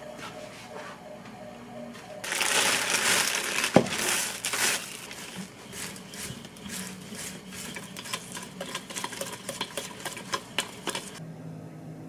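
Plastic delivery mailer bag being crumpled up by hand: loud crinkling starts about two seconds in, then gives way to a run of sharper crackles that stop abruptly near the end.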